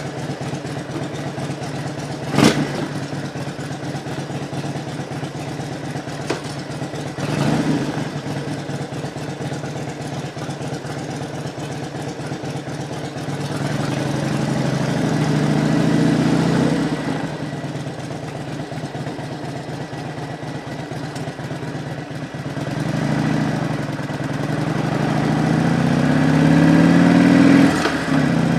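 Harley-Davidson Road Glide's V-twin engine idling, with a sharp clunk about two and a half seconds in. About halfway through it pulls away, and the engine note rises twice as the bike accelerates.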